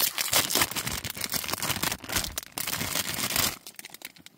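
Plastic snack wrapper crinkling as it is pulled open and a croissant bun taken out. The rustling stops about three and a half seconds in, leaving a few soft clicks.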